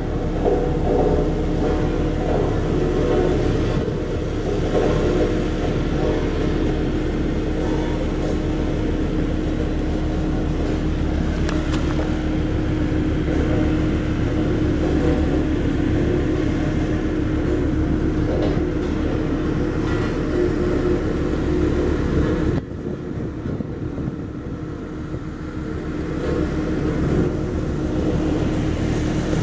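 Diesel engine of a Bomag BW 211 D roller running steadily under load, with a fast even low pulsing. About 22 seconds in the sound drops suddenly and goes duller, then builds back up near the end.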